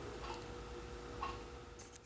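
A few light clicks over a faint steady hum.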